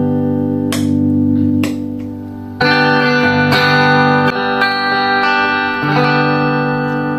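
Epiphone Coronet electric guitar played clean through an amp with its tone knob turned to zero: strummed chords left ringing, restruck about once a second, changing chord twice.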